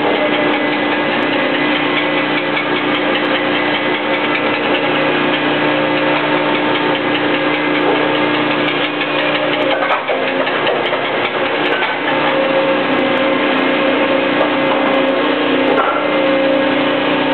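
Large industrial machine running steadily: a continuous mechanical hum with several steady tones, briefly dipping and shifting about ten seconds in.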